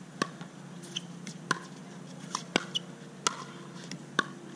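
Pickleball rally: paddles striking a plastic pickleball and the ball bouncing on the hard court, about seven sharp pocks at uneven intervals as drives alternate with soft dinks.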